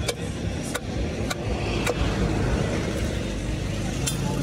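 Hammer driving a wooden peg into the hub of a solid wooden wheel disc: sharp knocks, four in the first two seconds and one more about four seconds in, over a steady low rumble.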